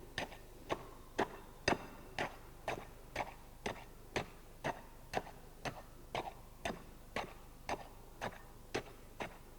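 Tamping rod striking fresh concrete in a test mold, a sharp knock about twice a second, compacting a layer of the concrete sample.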